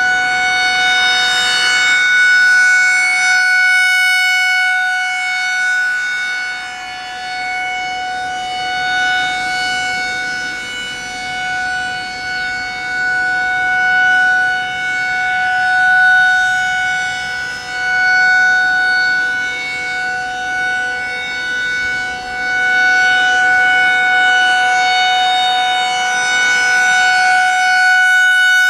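Federal Signal 2001-SRN rotating outdoor warning siren sounding a steady single tone at full speed for a routine test. Its loudness swells and fades every few seconds as the rotating horn sweeps toward and away.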